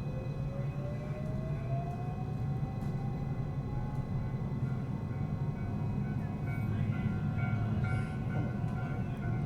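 Electric train's traction motors whining in a tone that rises over the first few seconds as the train gathers speed, over a steady low rumble of wheels on rail, heard from inside the front car.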